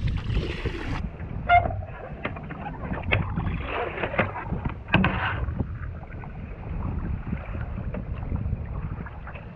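Kayak paddle strokes splashing and knocking in choppy sea water over a steady rush of wind and water; the strokes stop about halfway through, leaving only the rush.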